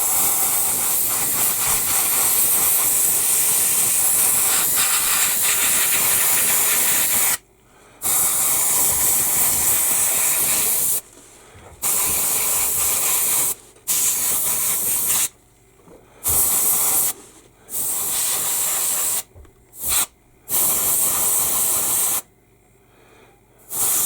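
Airbrush spraying paint with a steady hiss of air for about seven seconds, then in a string of short bursts of a second or two as the trigger is pressed and released.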